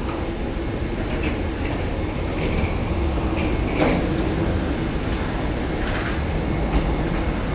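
Steady low rumble inside an airport jet bridge, with faint short squeaks now and then.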